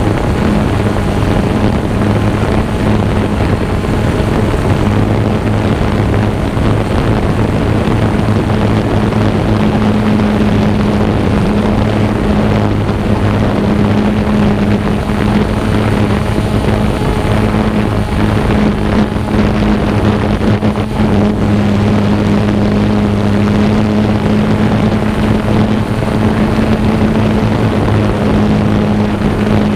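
Xiro Explorer quadcopter's four electric motors and propellers whirring in flight, a steady hum with wind noise over it.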